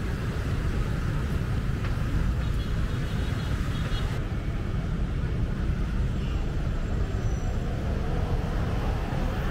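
Busy city street ambience: a steady rumble of passing traffic with voices of passers-by.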